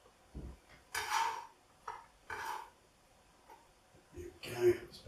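Short scrapes and clinks of a kitchen knife against a plastic chopping board and a bowl as sliced chicken is moved: a soft knock, two brief scrapes in the first half, then a louder clatter with a short ring near the end.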